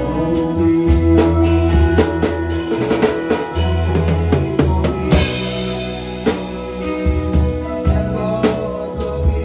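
Drum kit played live in a band groove: steady kick and snare strikes with cymbals, over held bass notes and other band instruments. A cymbal crash about five seconds in.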